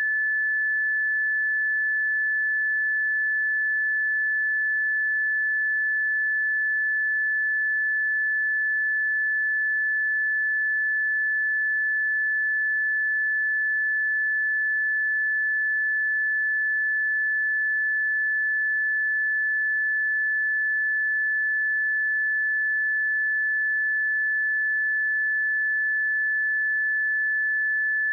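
A steady, unbroken pure sine-wave test tone at 1737 Hz, a single high-pitched note held at a constant level, used to check speakers or headphones.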